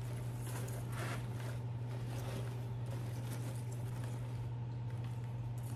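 Faint rustling and light crinkling of artificial flower stems being spread apart and pushed into an arrangement, over a steady low hum.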